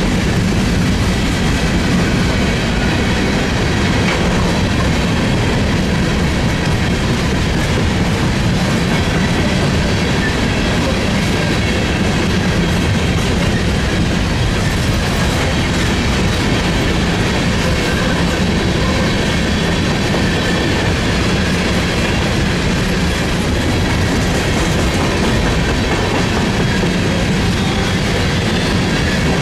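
Freight train rolling steadily past, its railcar wheels clicking over the rail joints.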